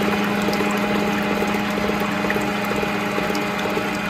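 Electric kitchen mixer motor running steadily with a constant hum, blending the wet dough ingredients of milk, yeast, eggs, sugar and butter.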